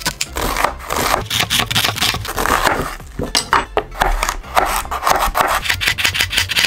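Chef's knife cutting an onion and then a carrot on a wooden cutting board: crisp crunching cuts and rapid taps of the blade on the board.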